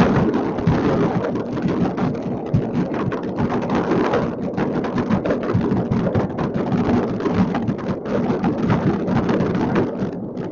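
Many distant fireworks going off at once across a city, merging into a continuous crackle of pops and booms with no gaps.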